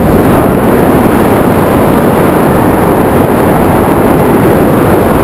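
Loud, steady wind rushing over the camera microphone as a tandem skydiving pair descends through the air.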